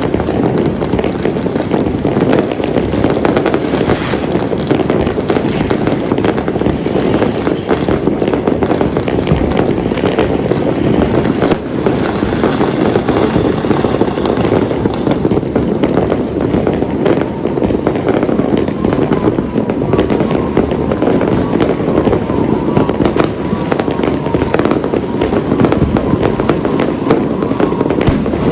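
Dense, unbroken barrage of fireworks and firecrackers: many overlapping bangs and crackles with no pause.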